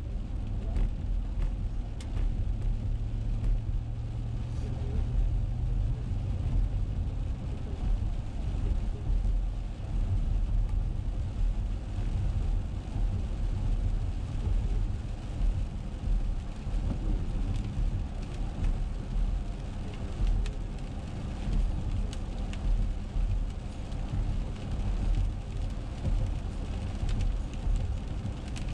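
Car driving on a wet road, heard from inside the cabin: a steady low rumble of tyres and engine, with scattered light taps of raindrops on the windshield.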